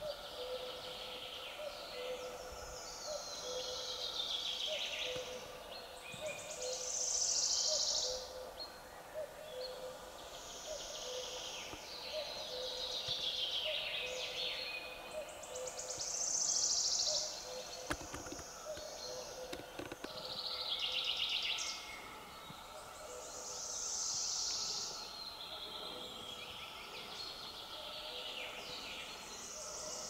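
Forest birdsong: a songbird repeats a short, high song phrase that falls in pitch, about every three to four seconds, over a faint steady hum. There is a single sharp click about eighteen seconds in.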